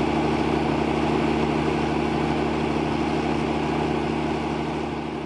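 John Deere tractor's diesel engine running steadily, fading out near the end.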